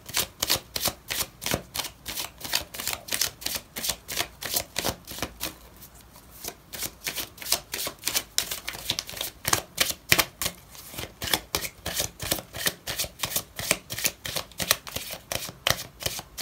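A deck of cards being shuffled by hand before a card is drawn: a quick, even run of card taps about five a second, with a short pause about six seconds in.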